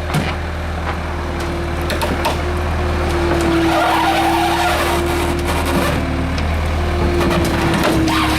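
Skid-steer loader's engine running steadily under load with a steady whine, as the machine makes another attempt to climb up to be loaded.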